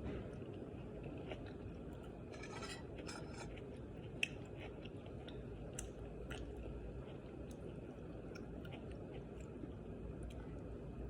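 A person chewing and eating close to the microphone, with scattered small mouth clicks and a short crackly patch about two seconds in, over a steady low background noise.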